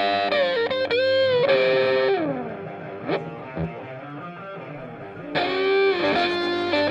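Background music led by electric guitar, with notes bending in pitch. It drops quieter about two seconds in and comes back up near the end.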